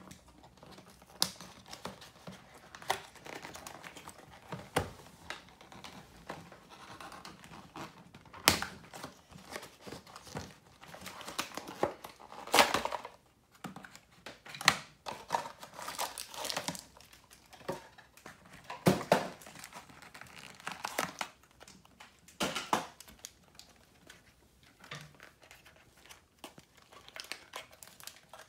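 Small cardboard toy-car box being opened by hand: irregular rustling, crinkling and tearing of the card and its insert tray, broken by sharp snaps and clicks, the loudest of them about a third of the way in, near the middle and about two-thirds in.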